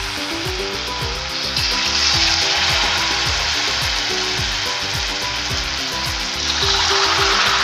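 Battered potato pakoras deep-frying in hot oil in a kadhai, a steady sizzle and crackle. It grows louder about one and a half seconds in and again near the end as more pakoras go into the oil.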